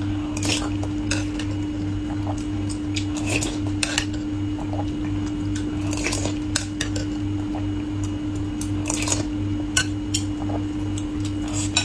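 Utensils clicking and clinking against dishes and bowls in scattered, irregular taps over a steady low hum.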